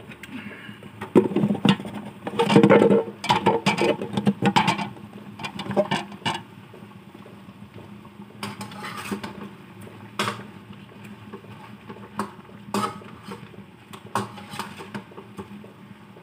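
Kitchen utensils clattering and knocking against a metal cooking pan, a busy run of clatter for the first few seconds, then a few single clinks while the pan is stirred.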